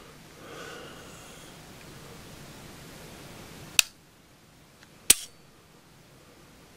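Two sharp metallic clicks from a Walther PPQ M1 9mm pistol's striker-fired trigger being worked, a little over a second apart, the second one louder.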